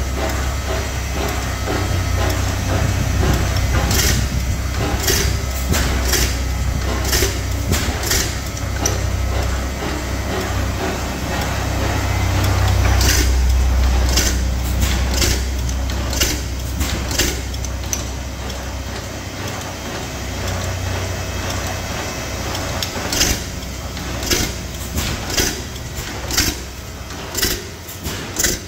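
15 hp Pattin Bros. Ekonomy stationary gas engine running, its big flywheels turning: a deep low rumble that swells and fades, with sharp clicks coming about once a second in stretches.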